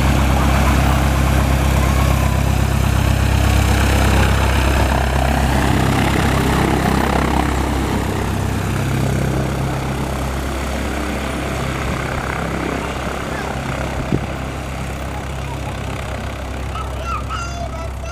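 Cessna 172SP Skyhawk's four-cylinder Lycoming engine and propeller running as the plane taxis close past. The low engine hum is loudest for the first seven or eight seconds, then grows fainter as the plane moves away.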